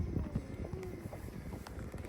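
Wind buffeting the microphone aboard a fishing boat: an uneven low rumble with a few faint knocks.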